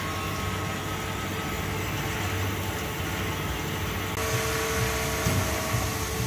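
Steady hum of a wire EDM machine running, with faint steady whining tones over a low drone. About four seconds in the sound changes suddenly: more hiss and a new tone join.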